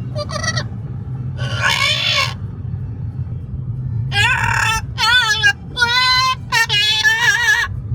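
Pet parrot calling inside a moving car: several short pitched calls that bend up and down, the busiest run in the second half, over the steady low rumble of the car on the road.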